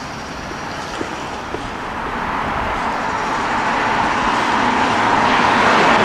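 Road traffic noise, with a motor vehicle's tyres and engine growing louder as it passes close by near the end.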